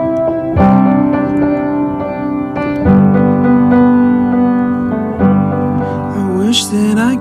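Background music: a pop song's piano intro, sustained chords struck about every two and a half seconds, with a voice starting to sing near the end.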